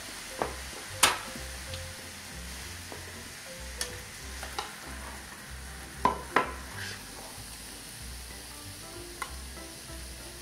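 Cooked minced chicken filling sizzling steadily in a wok while a metal spatula stirs and scrapes it, with several sharp clinks of the spatula against the pan, the loudest about a second in.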